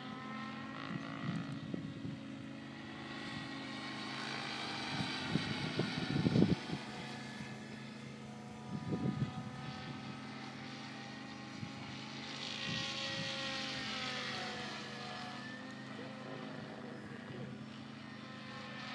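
SAB Goblin 700 electric RC helicopter flying overhead: the steady whine of its motor and rotor blades, the pitch drifting up and down and the sound swelling twice as it passes. Brief crackles come about six and nine seconds in.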